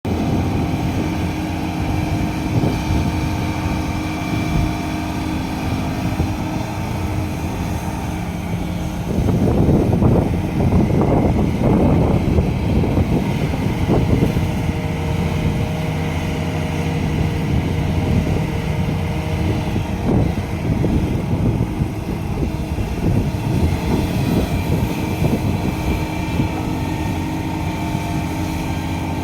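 Heavy diesel earthmoving machinery at work, a large excavator and a rigid mining dump truck, with a steady engine hum. A louder, rougher stretch comes about nine seconds in and eases off about five seconds later.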